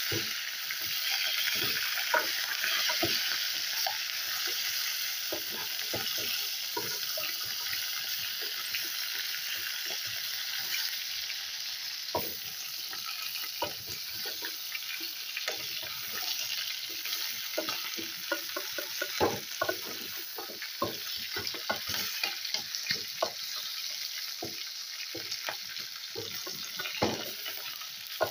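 Chicken pieces sizzling as they fry in oil in a metal pot, with a wooden spoon scraping and knocking against the pot as they are stirred. The knocks come more often in the second half.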